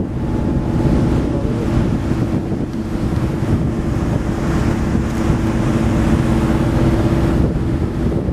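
A boat's engine running with a steady drone, with wind buffeting the microphone and water rushing past.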